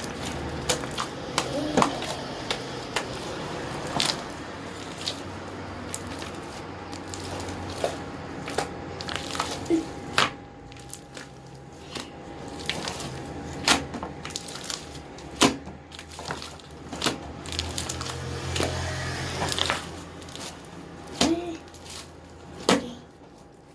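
Slime being kneaded and squeezed by hand, with many irregular sharp pops and clicks as air pockets in it burst.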